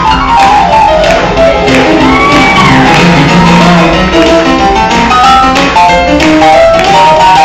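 Live gospel band music: an instrumental passage with an electronic keyboard and other band instruments playing an upbeat song, loud throughout.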